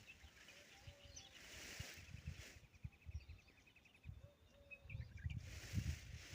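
Faint outdoor ambience with small birds chirping: a rapid, even trill about two and a half seconds in and scattered short chirps, over low rumbling gusts.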